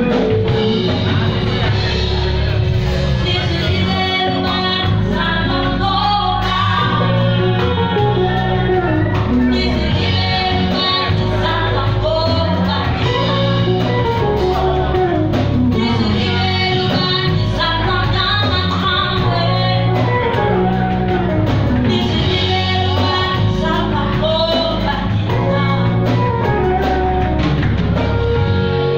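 Live band playing: a singer over electric guitar, bass guitar, keyboard and drums, amplified through a club PA.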